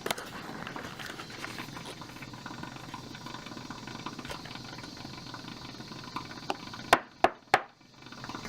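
Espresso machine steam wand hissing steadily while frothing heavy cream, then three sharp knocks in quick succession near the end.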